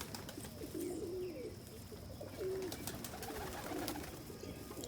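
Domestic pigeons cooing in a loft: several low, wavering coos one after another, with scattered light clicks and taps among them.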